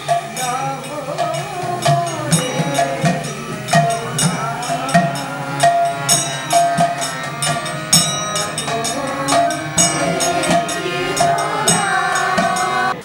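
Music: a song with singing over quick, busy hand percussion. It cuts off abruptly at the end.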